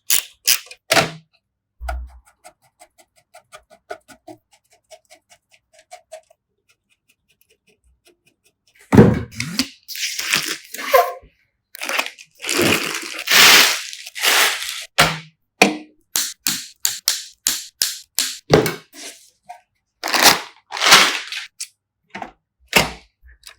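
A string of sharp clicks, snaps and knocks of computer parts being handled and fitted together, with a run of small rapid ticks early on, a short pause, then a busier stretch of clicks, knocks and swishing noises.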